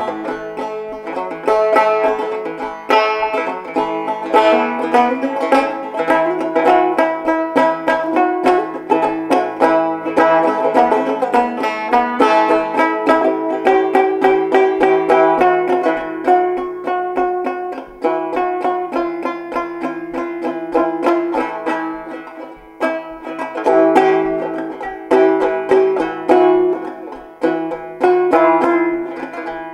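Banjo music: a steady stream of quick plucked notes, with some strings ringing on underneath.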